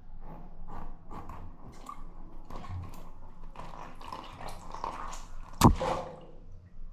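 A balloon pops once, sharply and loudly, about five and a half seconds in, after a run of small clicks and rustles.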